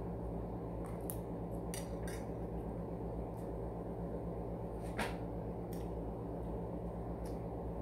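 A few short, faint clicks and taps from eating a meal by hand at a table, the loudest about five seconds in, over a steady low hum.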